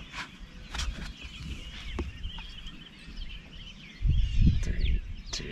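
Several small birds chirping and calling, with short rising and falling notes throughout. About four seconds in, a loud low rumble starts and covers them.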